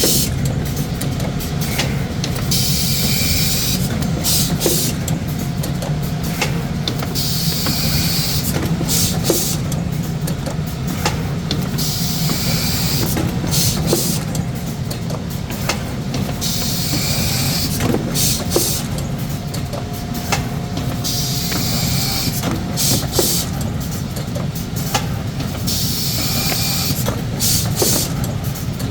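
Rigid box making machinery running: a steady motor hum, short hissing bursts every couple of seconds and scattered light clicks.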